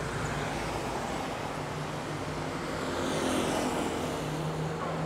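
City street traffic: motor vehicles running past in a steady hum, one passing a little louder about three seconds in.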